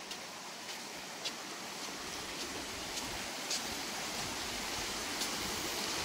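Shallow stream water running and trickling as a steady rushing that grows slightly louder, with a few faint ticks.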